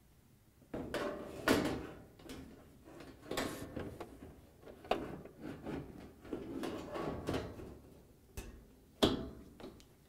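Metal dryer top panel being lowered onto the cabinet and pressed into place: a series of scrapes, bumps and clunks, with several sharp clicks as its tabs seat.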